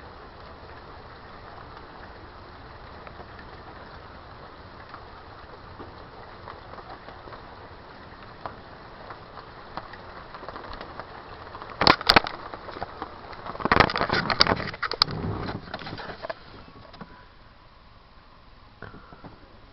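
Steady hiss of night rain falling. About two-thirds of the way in, a short run of loud knocks and rattles breaks over it, twice.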